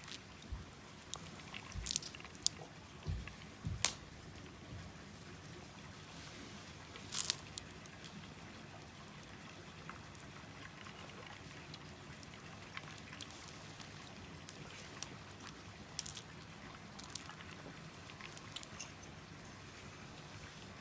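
Wood fire crackling in a small wood stove, with scattered sharp pops and ticks over a faint hiss; a few louder knocks in the first four seconds and a short crackling burst about seven seconds in.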